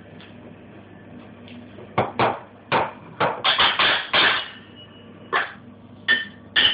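Kitchen crockery and pans clattering: a ceramic plate set down on the worktop and metal pans and lids handled, heard as a series of sharp knocks and clinks starting about two seconds in, some with a short ring.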